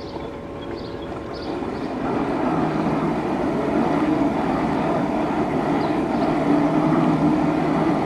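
Aiper Seagull Pro robotic pool cleaner at the waterline on the pool wall, its pump motor humming steadily while its outlet jet sprays and splashes water across the surface. The hum and splashing grow louder about two seconds in, as the jet breaks the surface during its wall climb.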